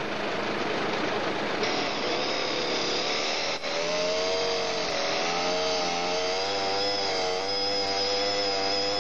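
Long-bar gas chainsaw running steadily at high speed as it cuts through a very large fallen tree trunk, its pitch wavering slightly under the load.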